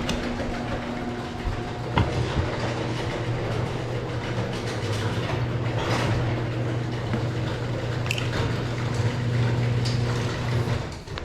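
Old 5 hp Briggs & Stratton single-cylinder engine on a homemade log splitter, running steadily with an even hum and no spitting or sputtering, which a new spark plug has cured. It stops near the end.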